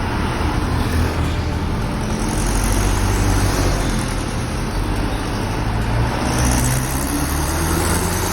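Mitsubishi Canter truck's diesel engine running through an aftermarket exhaust, a steady deep drone that swells slightly a few seconds in.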